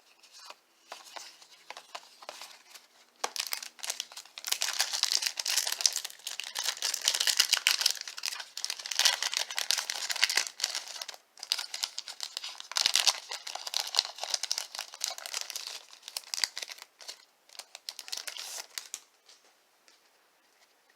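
Wrapper of a baseball card pack crinkling and tearing as it is ripped open and handled, in irregular bursts of high crackle. The crackle is light for the first few seconds, busiest from about four seconds in, and dies away near the end.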